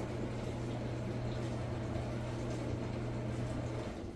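A steady low hum over faint hiss, stopping a little before the end.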